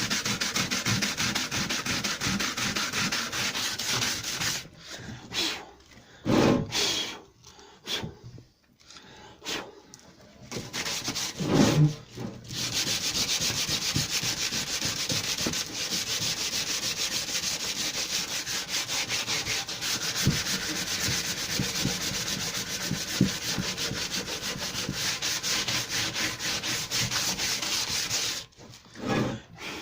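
Sanding of metal filler on a lawnmower deck: a steady rasping that stops about four seconds in. A few knocks and handling sounds follow, then the sanding resumes about twelve seconds in and stops shortly before the end.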